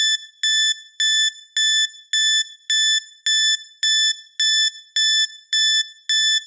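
Electronic timer alarm beeping, a high-pitched beep repeated evenly about twice a second, signalling that the countdown has reached zero.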